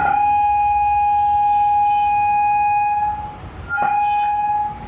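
Acoustic feedback through a small power amplifier board, with the microphone turned toward its speaker box: a loud, steady whistle on one tone with fainter overtones. It breaks off about three seconds in and returns briefly near the end.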